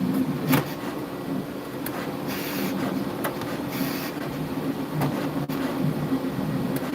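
3D printer running, its motors humming in short stretches that change pitch, with a few sharp clicks and two brief hisses.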